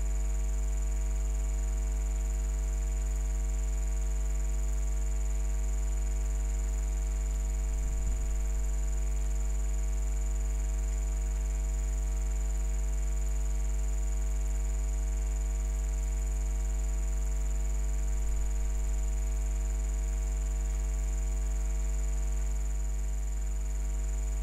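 Steady electrical hum and buzz in the microphone's recording, made of several steady tones, with a faint high whine above it; a faint low bump about eight seconds in.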